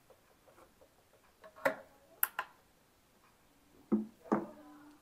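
A few light knocks and clicks as an empty plastic bottle and a plastic funnel are handled and set down on a counter. The last knock, near the end, leaves a short ringing tone.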